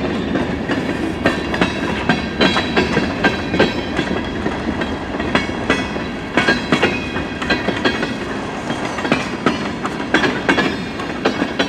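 CN freight train rolling past close by, its steel wheels clicking irregularly over the rail joints above a steady rumble.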